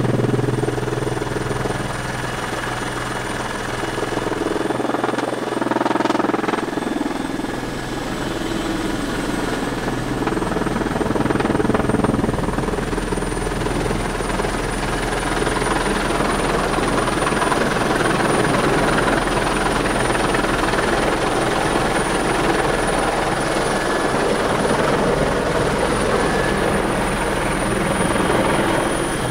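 Helicopter running on a landing approach, heard from inside the cockpit: a steady high turbine whine over engine and rotor noise. The whine dips slightly in pitch about eight seconds in and climbs back, and the sound grows rougher and noisier in the second half.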